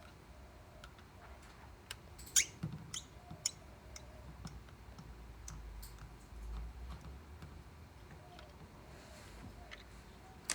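Scattered small clicks and taps from a screwdriver undoing the screws on a Toyota RAV4 wiper and indicator switch assembly, the loudest few clicks coming about two and a half to three and a half seconds in.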